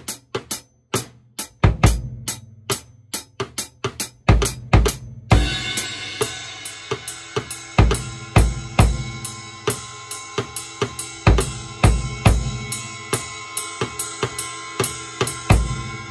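Drum kit with a Tama Woodworks 14x8-inch wooden snare played in a steady beat: crisp snare, bass drum and hi-hat strokes with short silences between them. About five seconds in, a cymbal starts ringing on under the beat for the rest of the stretch.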